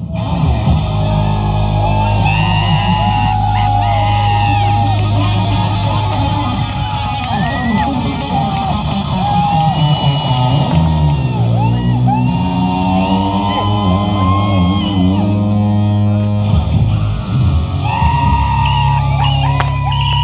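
Rock music with electric guitar and a heavy bass line playing loudly and continuously.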